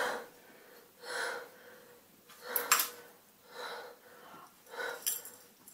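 A person's short, breathy breaths about once a second, with a few sharp clicks and taps of small objects being handled.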